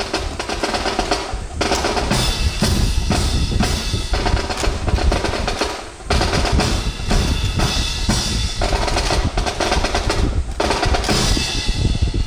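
Marching drum cadence on snare and bass drums, with snare rolls and sharp strokes. It breaks off briefly about six seconds in, then resumes.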